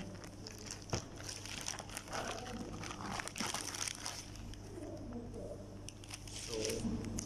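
A plastic courier mailer bag crinkling and crackling as it is handled and opened by hand, busiest in the first few seconds and sparser after.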